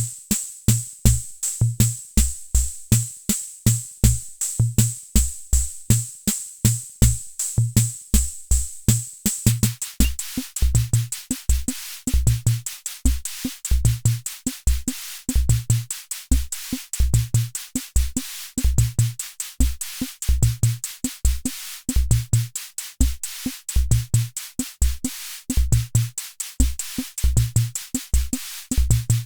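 Hammond Auto-Vari 64 analog rhythm machine playing a preset beat: low electronic drum thumps under a steady run of high hi-hat ticks. About nine seconds in, a brighter, hissier cymbal layer joins the pattern as a variation is switched on.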